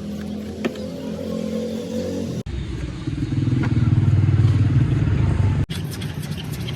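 A motor vehicle engine running steadily with a low hum. The sound changes abruptly twice, and the middle stretch is louder.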